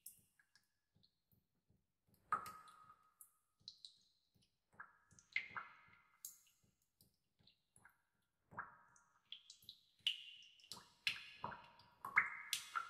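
Water dripping in a bathtub: irregular drips and clicks, some with a short ringing plink, sparse at first and coming closer together near the end.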